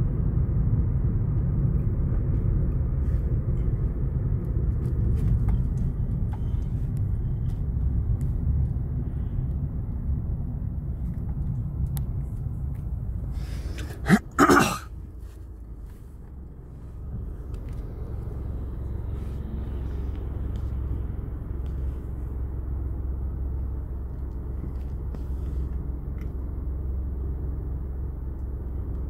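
Low, steady road rumble inside a moving car's cabin. About halfway through comes a brief loud noise in two quick bursts, after which the rumble drops for a couple of seconds and then returns a little quieter.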